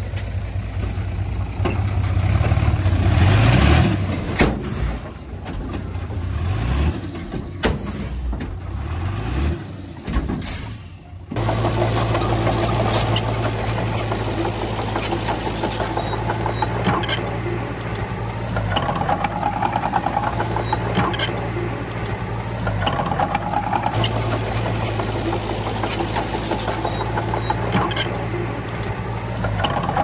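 Heavy earthmoving machinery's diesel engine running, rising and falling in pitch for the first ten seconds or so. It changes abruptly about eleven seconds in to a steady engine note with faint regular ticks.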